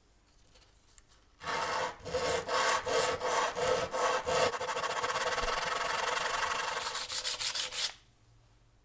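Abrasive rubbing, as in sanding or brushing during restoration work. It starts about a second and a half in with uneven strokes, settles into a steady scouring about halfway through, and stops abruptly near the end.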